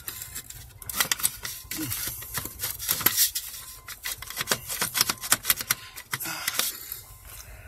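Irregular light clicks and taps of small metal parts being handled and fitted on a pickup truck's steering column, several to a second, in clusters with short pauses.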